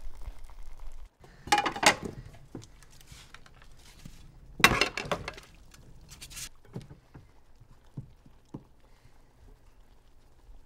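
Dishes being washed in a stainless steel sink: plates and crockery clattering and clinking in bursts, the loudest about a second and a half in and again near five seconds, with lighter knocks after. A low background hum cuts off about a second in.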